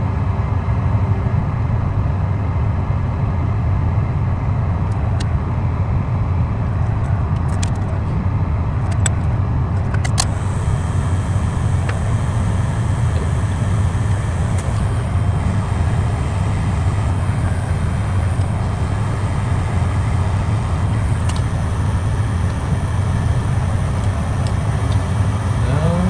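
Steady low rumbling blower noise from repair-bench equipment, with a few light ticks from a tool against the board between about five and ten seconds in.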